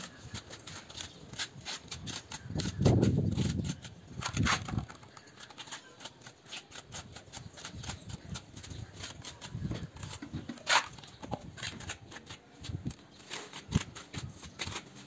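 Small hand trowel scraping and tapping wet mortar onto the bricks of a rocket stove: irregular light scrapes and taps, with a dull thump about three seconds in and a sharp knock near the eleven-second mark.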